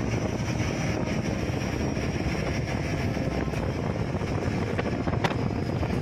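Steady rumble of the parasail tow boat's engine mixed with wind noise on the microphone, with one sharp click about five seconds in.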